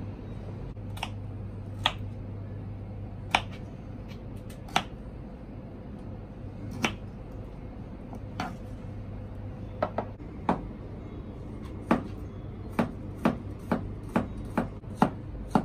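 Knife cutting pineapple chunks on a wooden cutting board: single sharp knocks every second or two. Later the knocks come faster, about two a second, as a cleaver chops garlic cloves on the board.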